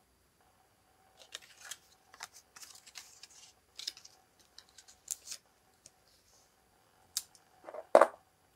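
Black cardstock and stiff gold artificial flower sprigs being handled: scattered crisp rustles and small clicks, then a louder flap of the card against the cutting mat about eight seconds in.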